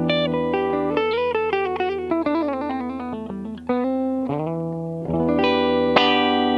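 Electric guitar played through a clone of the ThorpyFX Fat General optical compressor pedal: a held chord, then a quick run of single notes stepping down in pitch, then fresh chords struck about four, five and six seconds in that ring on.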